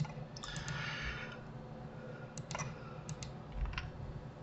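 Computer keyboard keys and mouse buttons clicking, several sharp separate clicks spread out with gaps between them. A short soft rushing noise comes about half a second in.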